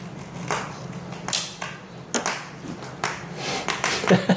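Handling noise: a string of irregular clicks, taps and rustling scrapes, several a second.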